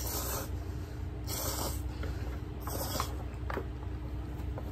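A person slurping noodles: three short, hissy sucking slurps about a second apart, over a steady low hum.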